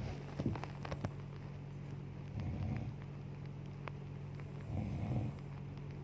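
A sleeping woman snoring: two rasping snores, about two and a half seconds apart, over a steady low hum, with a few faint clicks in the first second.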